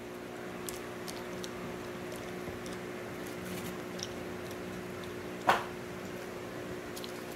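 Steady low hum of room noise with a few faint clicks, and one short, sharper sound about five and a half seconds in.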